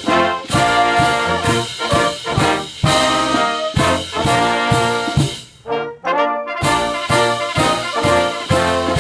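German army brass band of trumpets and trombones playing a national anthem in crisp, separate chords, with a brief break about six seconds in.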